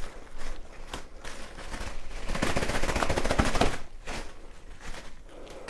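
Plastic packaging crinkling by hand: scattered rustles, then a dense, fast crackle about two seconds in that lasts a second and a half and is the loudest part.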